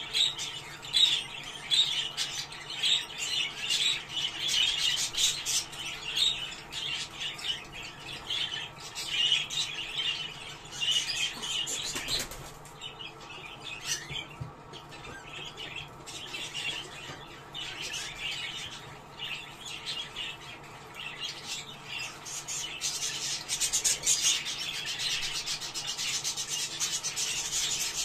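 A group of budgerigars chattering and warbling continuously in quick, scratchy chirps. The chatter thins out in the middle and grows busier again near the end.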